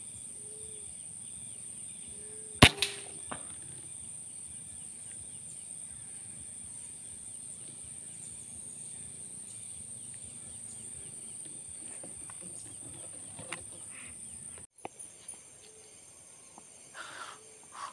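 A single sharp air-rifle shot about two and a half seconds in, fired at a bird in the treetops, over a steady high-pitched drone of insects.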